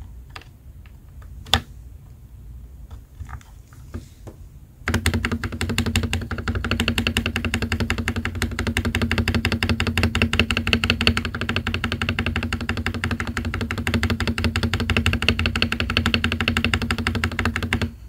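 An SA-profile keyboard spacebar gives a few scattered clicks as it is snapped onto its switch and stabilizers, one of them sharp. About five seconds in, it starts being pressed rapidly and continuously: an even run of clacks from a lubed Gazzew Boba U4T tactile switch with lubed MKID Holy Panda plate-mount stabilizers on an aluminium plate.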